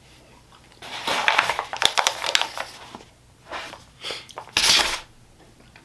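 Aluminium foil takeout tray crinkling and crackling as it is picked up and handled, followed by two shorter rustling bursts near the end.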